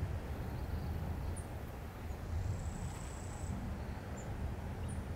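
Quiet outdoor ambience: a low, uneven rumble with a few faint high chirps and a thin high whine lasting about a second near the middle.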